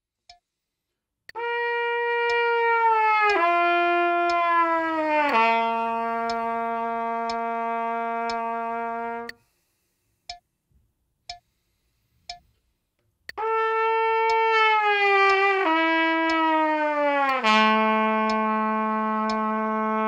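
Trumpet slurring a connected three-note descent: third-space C, down to G, down to low C, the low note held about four beats. It is played twice, with a short pause between passes, over a metronome clicking once a second.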